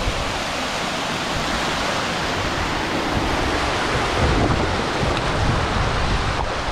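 Steady rushing of a mountain stream cascading over rock, with gusts of wind buffeting the microphone, stronger from about four seconds in.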